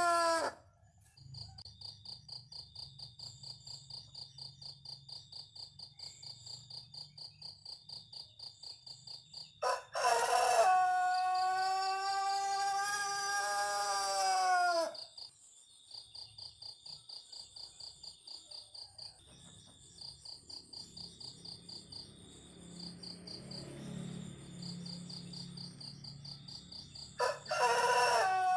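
Pelung rooster crowing: one long, drawn-out crow of about five seconds whose pitch falls at the end, a second crow beginning near the end, and the tail of an earlier crow right at the start. Between the crows, insects chirp in an even pulsing rhythm.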